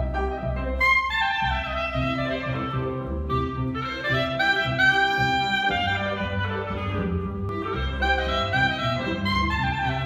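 Live traditional jazz: clarinet playing the lead melody with quick falling runs, over piano and double bass.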